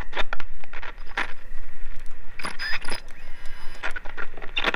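Irregular clicks and crackles over a steady low hum from a radio set left open while no reply comes in.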